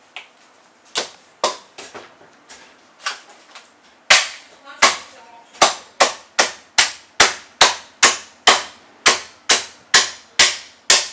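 Heavy Chinese cleaver chopping a salted goose into pieces on a thick wooden stump chopping block. A few softer knocks at first, then from about four seconds in a fast, even run of sharp chops, about two a second.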